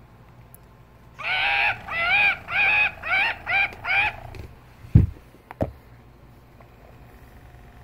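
Animatronic plush orangutan toy's electronic voice making a run of six quick pitched calls, each rising then falling, starting about a second in. Two short handling knocks follow, the first of them loud.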